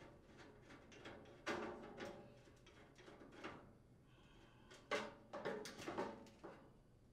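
Phillips screwdriver backing out the drawer handle's mounting screws through a sheet-metal drawer front: faint scattered metallic clicks and scrapes, with a denser run of small clinks about five to six seconds in.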